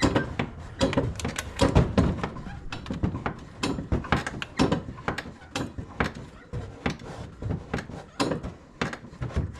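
Irregular knocks and clicks, several a second, as the brake pedal of a Polaris RZR side-by-side is pumped to build pressure while bleeding air from the front brakes.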